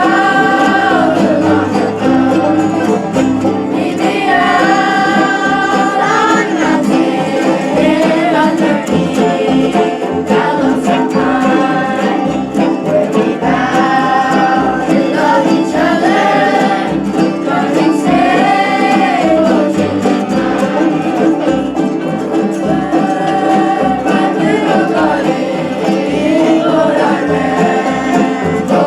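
Bluegrass band playing and singing, with a steady beat under the sung melody.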